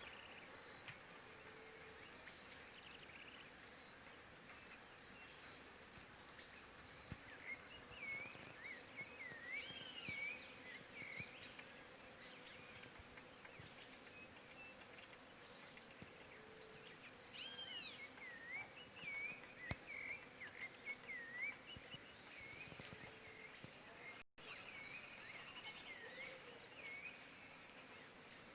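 A steady high-pitched insect drone, with faint fluting, whistled song phrases of a rufous-bellied thrush (sabiá-laranjeira) scattered through the middle. The sound cuts out for an instant about 24 seconds in.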